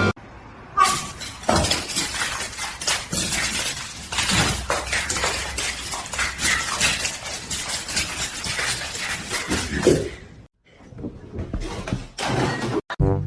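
A busy, irregular clatter of knocks and impacts for about ten seconds, then a brief drop out and a shorter stretch of the same kind of noise.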